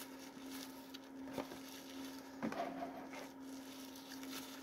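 Quiet room tone with a steady low hum, broken by a couple of faint clicks and soft mouth noises about a second and a half and two and a half seconds in.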